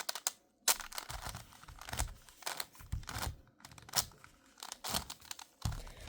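Irregular clicks and clacks of a 5x5 Rubik's Cube's plastic layers being turned by hand in quick, uneven moves, as an edge-flipping algorithm is carried out.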